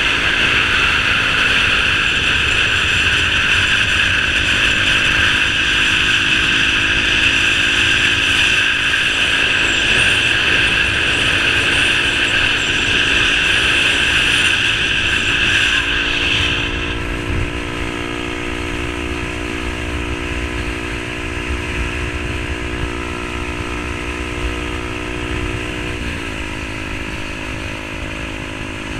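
Yamaha R15 V3's single-cylinder engine running at steady revs through an aftermarket SC Project exhaust while riding. About two-thirds of the way through, a loud high-pitched part of the sound drops out and the overall sound gets a little quieter. Near the end the engine note briefly dips in pitch.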